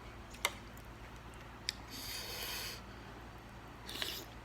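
Close-up eating sounds of a person eating a spicy seafood papaya salad: two sharp clicks, then two short hissing noises of air drawn in, about a second and a half apart.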